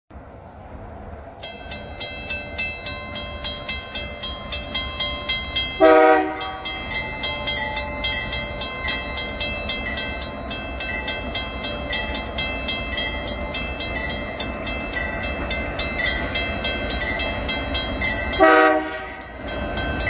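Level-crossing warning bell ringing in a fast, even rhythm from about a second and a half in, over the low rumble of an approaching CN diesel freight train. The locomotive's horn gives one short blast about six seconds in and another near the end.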